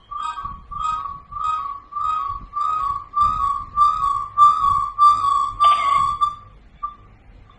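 Electronic call tone from a video doorbell intercom: a short pitched beep repeating about twice a second, which stops about six seconds in.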